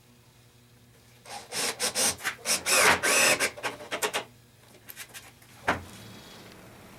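A run of irregular scraping and rubbing strokes lasting about three seconds, then a single knock.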